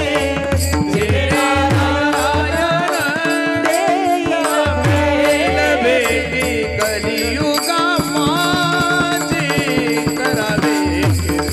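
Devotional kirtan music: men singing a melody in chorus over a steady drone, kept in time by small hand cymbals and a deep drum whose strokes drop in pitch. The drum stops twice for a second or so.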